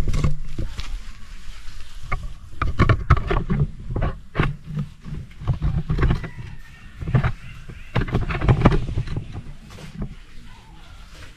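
Handling noise from a phone camera being carried and set in place out of sight: irregular knocks and rubbing against the microphone over a low rumble.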